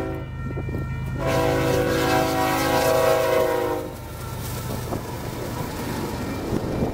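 Union Pacific GE Evolution-series freight locomotive's multi-chime horn blowing for the grade crossing: a blast that ends just after the start, a short break, then a long steady blast that cuts off about four seconds in. After it comes the steady rumble of freight cars rolling over the rails, with a few wheel clicks near the end.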